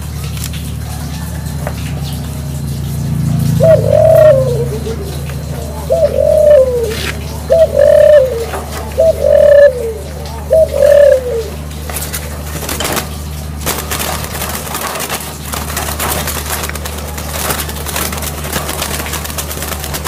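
Caged barbary doves, a dove cooing five times in a row from about four seconds in, each coo a short rising-then-falling note, over a steady low hum. After the coos stop come scattered faint clicks and hiss.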